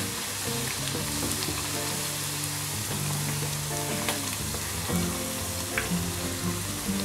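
Bottle gourd and wheat flour puris deep-frying in hot oil in a kadhai, sizzling steadily with small scattered pops. Soft background music plays underneath.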